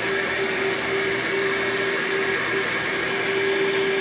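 Yonanas 902 soft-serve maker's motor running with a steady, even whine while banana is pushed down its chute with the plunger and churned out as soft serve.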